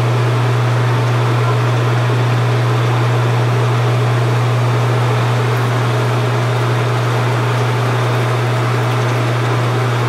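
Steady, loud electric-motor hum of pool equipment running, most likely the pool's circulation pump that powers the suction cleaner, with a steady hiss of moving water over it.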